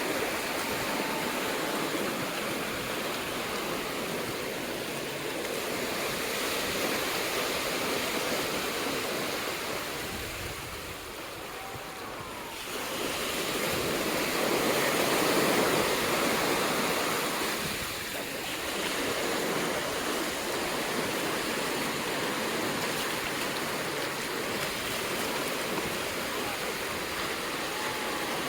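Ocean surf breaking and washing up the beach, a steady rush that swells and eases, dropping off about eleven seconds in and loudest a few seconds later.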